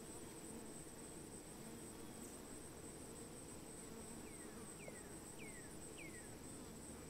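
Crickets trilling steadily, a faint high-pitched drone over a low hum. A little over halfway through come four short falling chirps about half a second apart.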